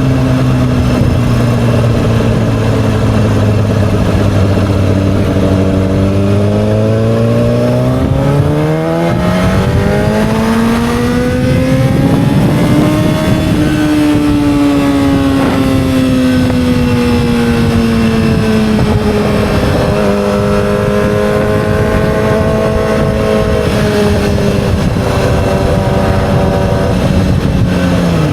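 2007 Yamaha R6's inline-four engine running. Its pitch climbs over several seconds to a peak about halfway through, then falls slowly and drops sharply at the very end.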